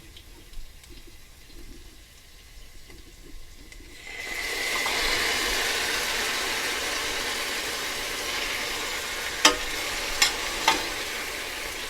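Chopped tomatoes going into a hot pan of ghee and browned onions: a loud, steady sizzle breaks out about four seconds in. A few sharp clicks of a utensil against the pan near the end.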